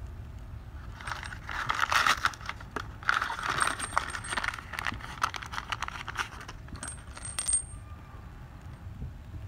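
Crinkling of a hardware packet being handled and emptied, with small metal washers and a nut clinking onto concrete.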